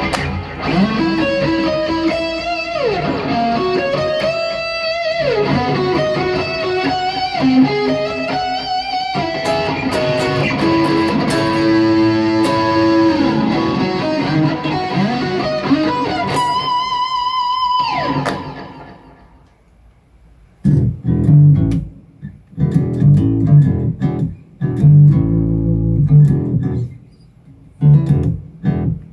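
Electric guitar played through a Boss GT-1000 Core multi-effects processor. A sustained lead line with slides and vibrato fades out after about eighteen seconds, then gives way to low, chugging riffs in short bursts with pauses between them.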